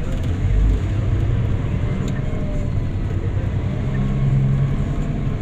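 Cat 6020B hydraulic mining shovel's diesel engine and hydraulics running under load, heard from inside its cab as the shovel swings: a loud, steady low rumble with a heavier surge about half a second in and the engine note rising briefly near the end.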